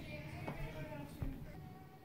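Faint music: a few held, melodic notes, with two light knocks about half a second and just over a second in.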